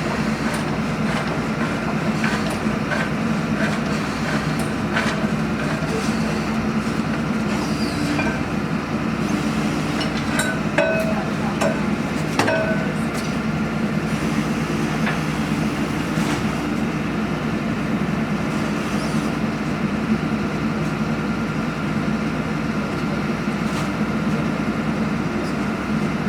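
A heavy engine running steadily, with a few sharp metallic clanks around the middle.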